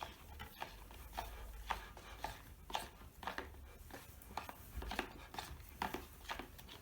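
A spoon stirring coloured liquid glue and water in a bowl, tapping and scraping against the sides in short, irregular knocks.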